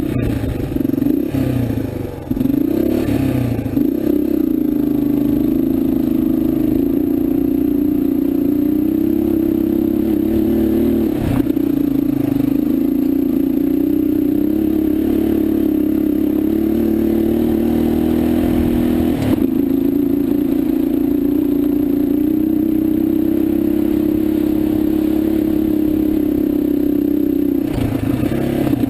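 Motorcycle engine running at a steady pace while riding a rough trail, its note wavering over the first few seconds and then holding level, with a couple of sharp knocks from the bike jolting over rocks.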